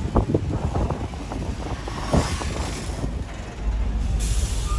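Heritage steam-train passenger carriages rolling slowly past a platform: a low rumble with irregular knocks and clunks from the wheels on the rails, and a hiss that starts near the end.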